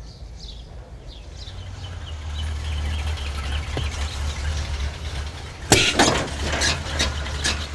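A low steady rumble, then a loud clatter of knocks and metallic clinks about six seconds in as things are handled in an open car trunk.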